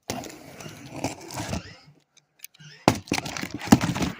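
Cardboard shipping box being handled and opened: scraping and rustling, then a run of sharp knocks and clicks from about three seconds in.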